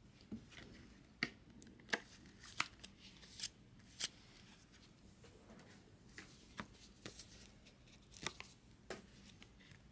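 Hard plastic trading-card holders being handled, giving a string of sharp clicks and taps, louder in the first few seconds and softer ones later.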